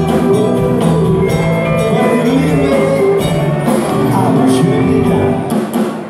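Amplified live band playing with electric guitars, drum kit and keyboard in a steady beat, with singing.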